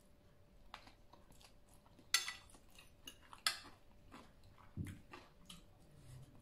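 A person chewing a mouthful of noodle salad, with small mouth ticks and two sharp clicks of metal cutlery against a ceramic bowl about two and three and a half seconds in. A short soft low bump follows near five seconds.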